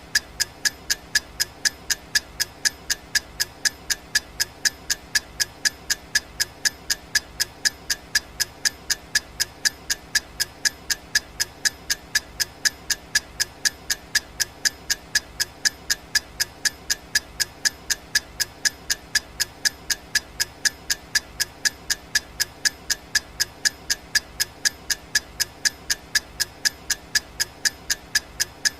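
Clock-tick sound effect of a countdown timer: even, sharp ticks at a steady pace of about three a second, with no change.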